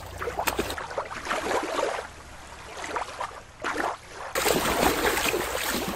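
Shallow water sloshing and washing at a beach, with wind on the microphone; the background changes abruptly twice.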